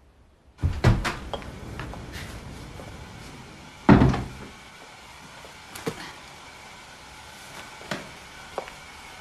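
Door and household knocks in a small room: a couple of sharp bangs about half a second in, a heavy thump about four seconds in, then a few lighter knocks.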